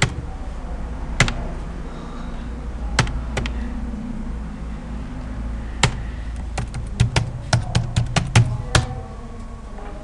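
Computer mouse clicks and keyboard keystrokes: a few separate clicks, then a quick run of about ten key taps in the last few seconds, over a low steady hum.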